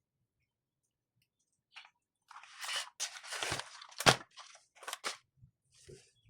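Close handling noise: crunchy, crinkly rustling of objects being moved, starting about two seconds in, with a sharp knock about four seconds in and a few lighter clicks.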